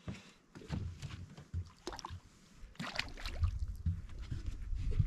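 Water splashing and trickling as a caught black bass is let back into the water, with scattered knocks from handling. A low rumble builds after about three and a half seconds.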